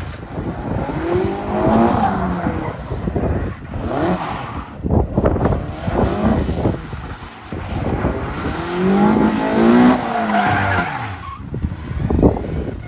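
Classic Mini's four-cylinder engine breathing through individual motorcycle throttle bodies, revving hard as the car accelerates away; the engine note climbs and falls twice. Freshly tuned on a Speeduino ECU, it sounds pretty good.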